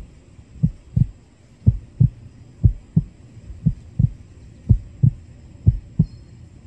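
Heartbeat sound effect: a steady double thump, lub-dub, about once a second, laid over the picture as a suspense effect.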